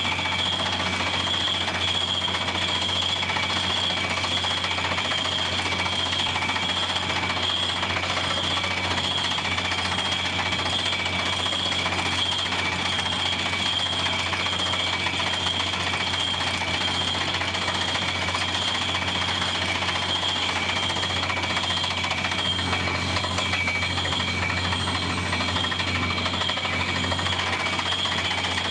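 Water well drilling rig running steadily under load: engine and drilling machinery with a dense, rapid rattle and a steady high whine on top.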